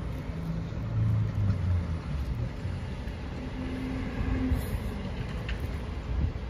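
Low, steady rumble of car engines in a parking lot, with a deeper engine hum swelling briefly about a second in and again about four seconds in.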